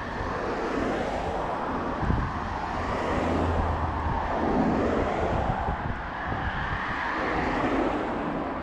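Cars driving past on the road alongside, their tyre and engine noise swelling and fading as each one passes.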